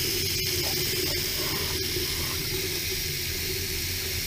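Shower water running with a steady hiss.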